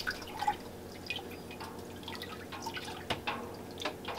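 A wooden spoon stirring liquid dandelion wine must in a large stainless steel stockpot to mix in the yeast: irregular small splashes and sloshes, several a second at times.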